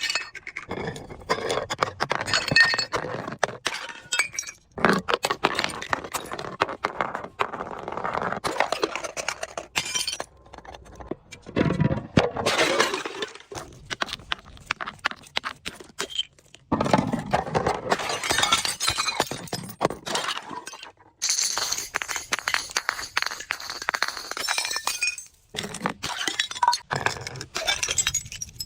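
Glass bottles being crushed and shattering: dense cracking and crunching with shards clinking, in several separate bouts with short breaks between them.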